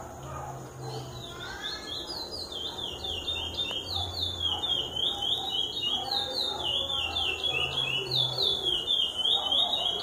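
Chestnut-bellied seed finch (curió) singing: a fast, continuous run of short, high descending whistled notes that starts about a second in and grows louder.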